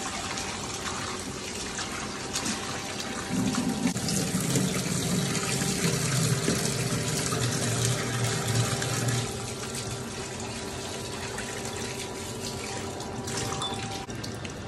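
Kitchen tap running into a steel bowl in a stainless steel sink while raw chicken pieces are rinsed and rubbed by hand. A louder low hum joins the water from about three seconds in until about nine seconds in.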